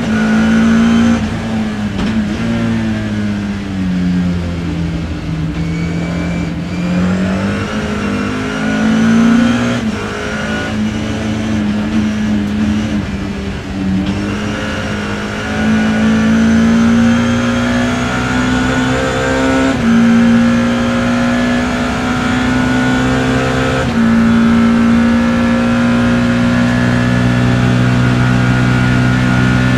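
BMW E30 M3 race car's S14 four-cylinder engine heard from inside the car at racing speed: the engine note drops and rises again as the car brakes and accelerates through corners, then holds high and climbs slowly with a couple of small steps in pitch over the last ten seconds.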